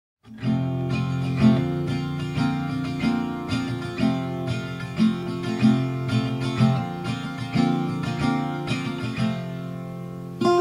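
Instrumental background music of plucked notes.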